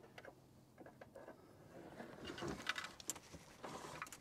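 Faint handling noises: light clicks and rustling as a parking-sensor wire is fed through a hole drilled in a car's metal bumper, growing busier about two seconds in.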